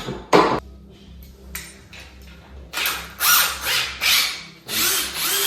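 Drill boring into a wooden door through a deadbolt boring jig, cutting in a series of short pulses from about three seconds in. A sharp knock comes about half a second in.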